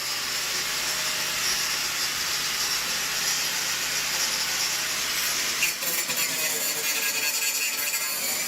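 A power tool working on the van's metal bodywork, giving a steady hissing rasp that runs without a break.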